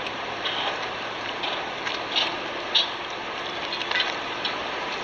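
Water splashing and lapping close by from a kayak's paddle strokes and small waves against the hull, with short irregular splashes every half second or so over a steady rush of water and wind noise.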